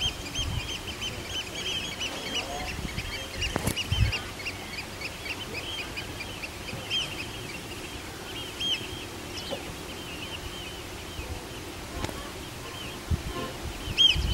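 A flock of birds calling continuously: many short, high-pitched arched calls, several a second, over a low wind rumble. A sharp knock about four seconds in and a thump near the end.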